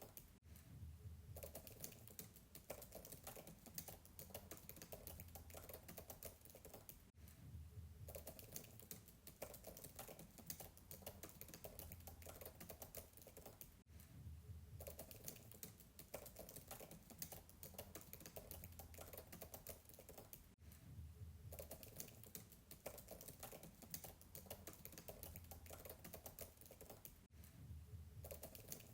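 Fast, continuous typing on a MacBook keyboard, a dense patter of soft keystrokes, faint and recorded from a distance.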